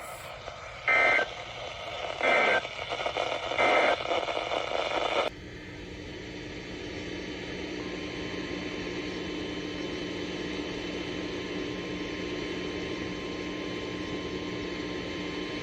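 Emergency Alert System end-of-message signal from a weather radio: three short, buzzy digital data bursts about a second and a half apart. The sound then switches abruptly to steady radio static with a low hum and a faint steady tone.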